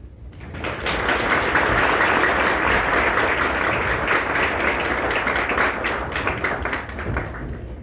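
Audience applauding in a concert hall, starting about half a second in and dying away near the end as the next piece begins.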